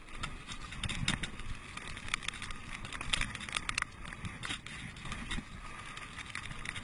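Mountain bike riding down a dirt trail: steady tyre noise on the dirt with many sharp, irregular rattles and clicks from the bike.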